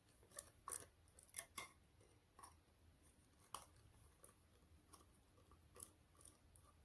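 Faint, irregular clicks and ticks of a small screwdriver or hex key tightening M3 screws into a 3D-printed plastic faucet diverter cover.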